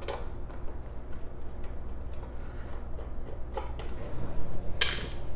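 Screwdriver working the screws out of a 3D printer's metal electronics enclosure cover: scattered small ticks and clicks, with one short, louder scraping noise a little before the end.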